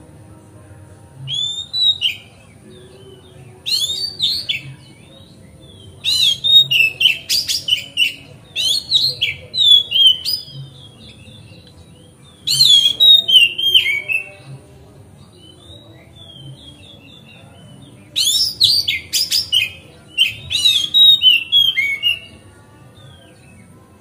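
Male Oriental magpie-robin (kacer) in full, vigorous song ('gacor ngeplong'). It sings five loud phrases of varied whistles and sharp clicking notes with short pauses between them; the longest phrase lasts about five seconds, in the middle.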